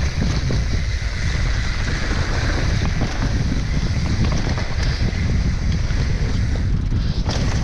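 Wind rushing over the rider's camera microphone, with the steady rumble and small rattles of a mountain bike going fast down a clay dirt trail.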